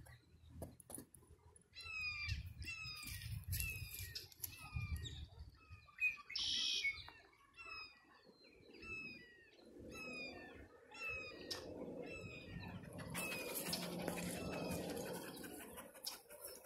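A bird calling over and over, a run of short falling notes about two a second, over a low rumble. Near the end there is a stretch of louder rustling noise.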